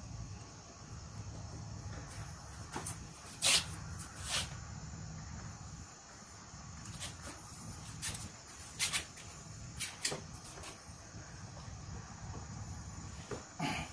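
Scattered brief rustles, taps and clicks of hands working new rubber weatherstripping into place along the hatch opening, over a steady low hum.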